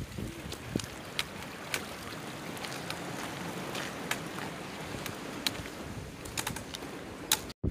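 A shallow brook running over stones: a steady wash of flowing water with scattered light ticks and splashes, cutting out abruptly for a moment near the end.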